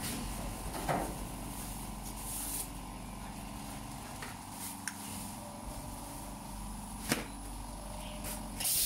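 Tian Yuan quilt roll packing machine running: a steady hum with a constant tone, broken by a few sharp clicks and knocks from its mechanism, and a louder rushing hiss near the end.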